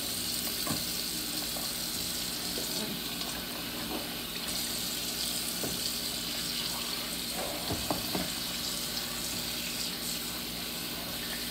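Kitchen tap running steadily into the sink, with a few light knocks.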